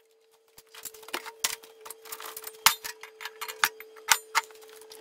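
Irregular metallic clicks and taps, with a few sharper knocks, as a metal workpiece is handled and reset in a cast-iron bench vise, over a faint steady hum.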